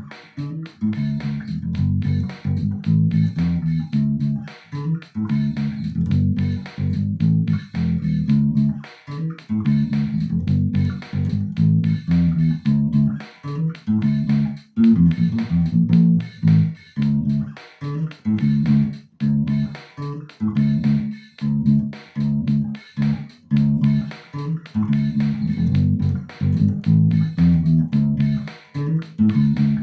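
Electric bass guitar played on its own, plucked, repeating a reggae bass line in 4/4: short, low, separated notes in phrases broken by brief rests.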